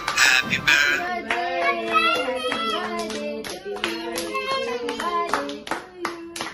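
Electronic music with synthetic singing for about the first second, then a group of adults and a child singing together while clapping in time, about two to three claps a second.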